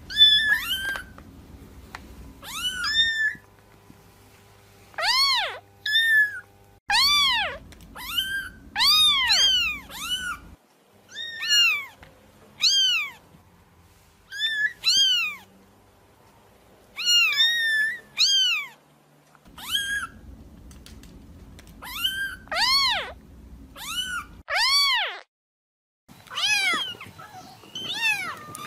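Kittens meowing again and again: short, high calls that rise and then fall in pitch, often in quick pairs, with brief gaps between. A faint low rumble under them switches on and off several times.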